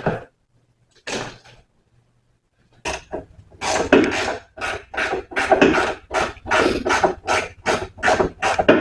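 Repeated rasping, scraping strokes, two to three a second, starting about three seconds in after a short scrape about a second in.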